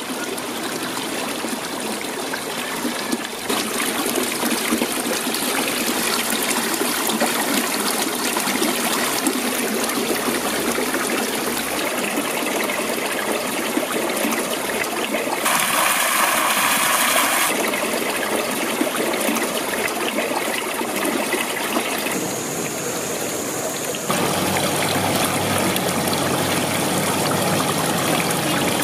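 Running water trickling and splashing steadily. Its tone shifts a few times: a brighter hiss for a couple of seconds around the middle, and a fuller, lower sound from about three quarters in.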